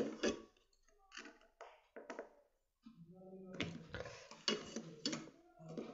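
Light taps, clicks and rustling from hands handling two-way switch boards and red wires on a wooden tabletop. The taps are scattered at first and turn into denser handling noise with a few sharper clicks from about three seconds in.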